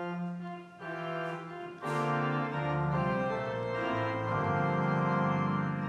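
Organ beginning an instrumental introduction with held chords; low bass notes come in about two and a half seconds in and the sound fills out.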